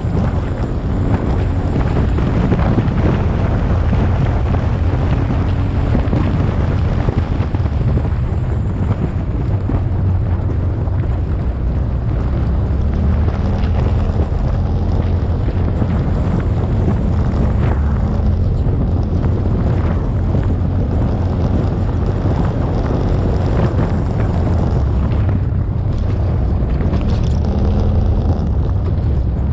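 Open off-road vehicle driving along a rough dirt trail: a steady low engine and tyre rumble over gravel, with wind buffeting the microphone.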